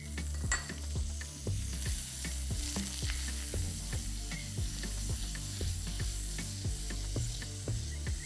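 Butter melting in olive oil in a hot frying pan, with a steady sizzle. Background music with a bass line and a regular beat plays underneath.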